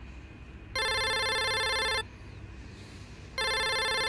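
A phone ringing with a fluttering electronic ring: one ring of about a second and a quarter, then a second ring starting near the end.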